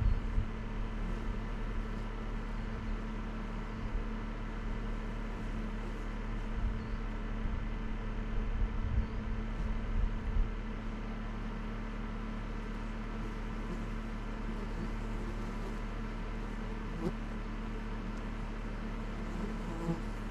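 Dacia Solenza car engine running at a steady, unchanging speed, with low thumps and knocks during the first half.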